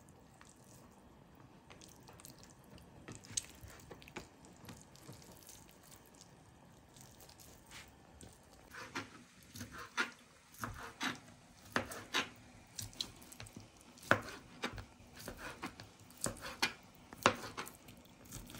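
Kitchen knife cutting cooked beef on a cutting board: faint scattered taps at first, then from about nine seconds in a run of sharper knife knocks on the board.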